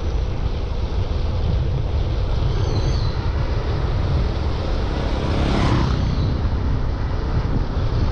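Wind buffeting and rumbling steadily on the microphone of a moving bicycle rider, with a brief hiss that swells and fades about five and a half seconds in.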